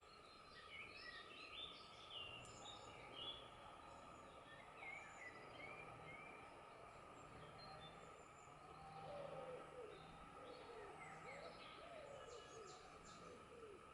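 Faint outdoor ambience with several birds chirping and singing in short high phrases, lower warbling calls joining about eight seconds in, over a steady faint background hum.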